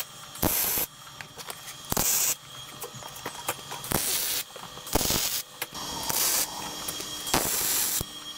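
Welder laying tack welds on steel suspension tabs: about five short bursts of hiss, each lasting under a second, with pauses between.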